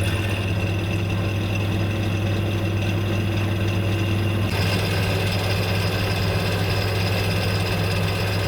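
Steady machine hum with a strong low drone and a few steady tones above it, running at an even level; its upper tones change abruptly about four and a half seconds in.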